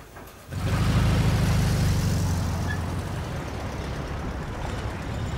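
A motor vehicle's engine running loudly and steadily, starting abruptly about half a second in and easing off slightly towards the end.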